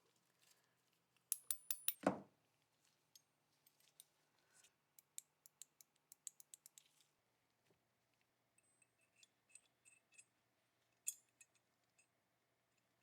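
Small metal parts clicking and clinking as they are handled, with a quick cluster of loud sharp clicks about a second and a half in, then scattered lighter clicks.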